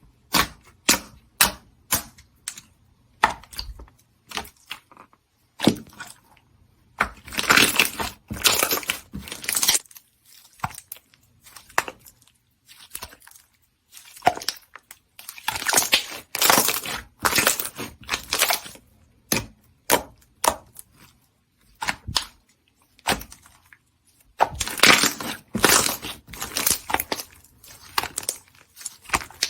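Slime being squeezed and pressed by hand. It gives a run of sharp crackling pops, broken by longer stretches of crunchy, crinkly squishing that start and stop.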